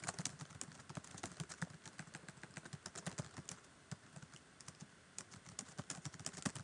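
Typing on a computer keyboard: a fast, irregular run of key clicks.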